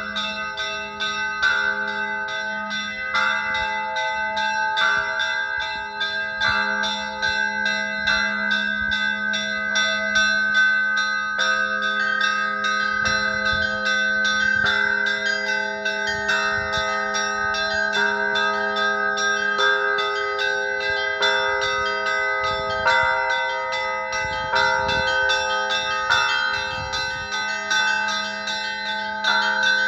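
Russian Orthodox church bells ringing a peal: small bells struck in quick repeating patterns over middle bells that alternate about every second and a half, with a low bell humming beneath.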